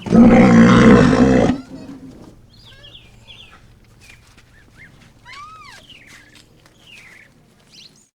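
Rhinoceros giving one loud, low bellow lasting about a second and a half, which cuts off sharply. Faint short chirps follow.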